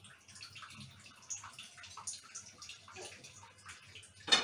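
Faint scattered clicks and rustles of hands handling food and kitchenware, with one sharp knock near the end.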